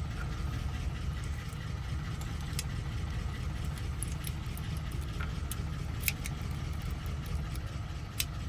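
Steady low rumble of a running motor, with a few small sharp metal clicks, at about 2.5, 6 and 8 seconds, as parts of an ignition lock cylinder are handled.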